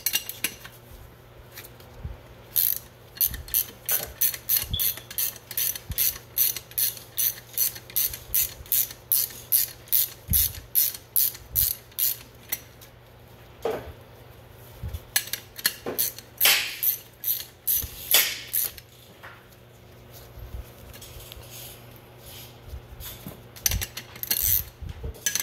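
Ratchet wrench clicking in quick, even strokes, about three clicks a second, as it turns a plug in the pump housing. After a pause come a few short rasps and more scattered clicks.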